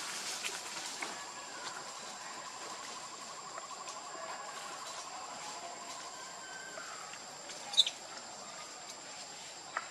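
Outdoor natural ambience: a steady high-pitched hum with a faint rapid trill and scattered faint chirps, and one short, sharp chirp about eight seconds in.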